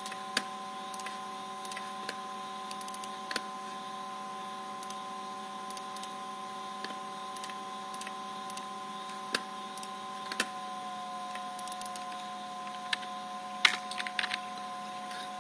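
Steady, quiet whine of a CNC router's servo motors and their drives, several held tones together, one of which drops in pitch and another stops about ten seconds in as the motion changes. Light, scattered clicks are heard over it.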